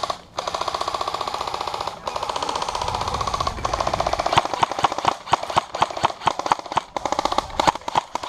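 Airsoft electric guns firing long full-auto bursts, a rapid even clatter of shots broken by brief pauses. From about four seconds in, it turns into separate, sharper and louder shots at an uneven pace.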